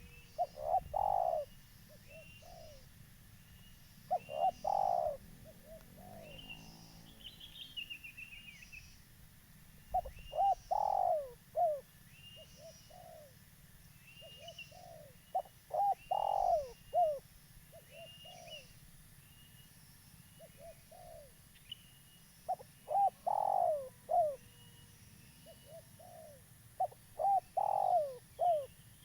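Spotted dove cooing: a multi-note phrase repeated about every four to six seconds, six times in all. Faint, steady chirping of small birds runs underneath.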